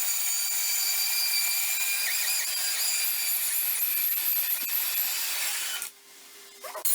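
A power tool, probably an angle grinder, grinding or cutting metal with a steady, high-pitched whine. It cuts off abruptly near the end.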